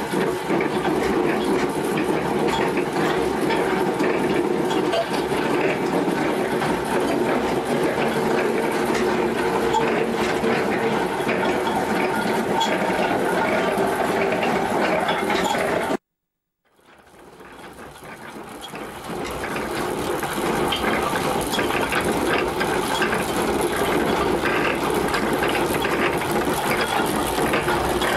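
Home-built coal stoker feeder of a central-heating boiler running: its motor and belt drive turning the feed mechanism with a steady mechanical whirr and fine clatter. The sound breaks off abruptly about halfway through and fades back in.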